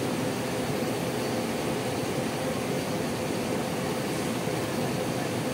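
Parked coaches' diesel engines idling steadily, a continuous rumble with a faint steady hum over it.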